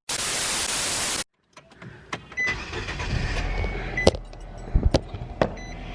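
A loud burst of hiss like static that cuts off suddenly about a second in, followed by a quieter low rumble with scattered sharp clicks and knocks.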